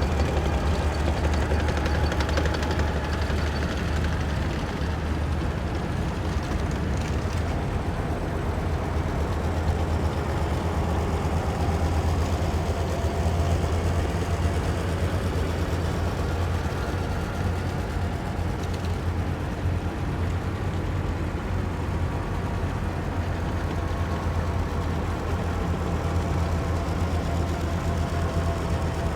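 Heavy military vehicles' engines running in a column: a steady, deep, low drone with engine noise spread above it and no single vehicle clearly passing by.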